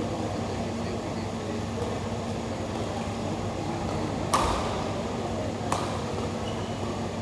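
Badminton racket striking a shuttlecock twice, sharp hits about a second and a half apart, over a steady low hum.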